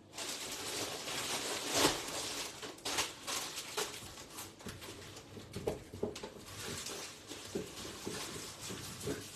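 Rummaging in a kitchen: irregular rustling with short knocks and clatters, the loudest about two seconds in.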